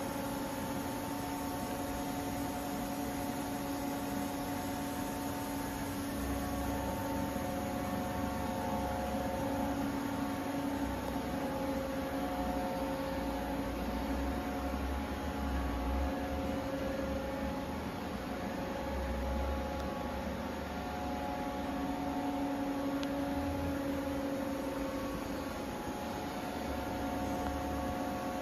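Steady electrical hum of a powered-up Haas VF-6/40 CNC vertical machining center standing idle, several steady tones over a hiss, with intermittent low rumbles in the middle.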